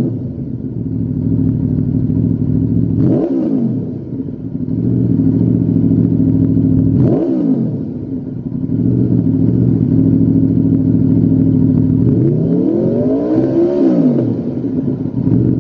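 Aprilia RSV4's V4 engine idling through a Lextek XP10 aftermarket silencer, blipped twice and then revved longer near the end, the pitch rising and falling with each rev.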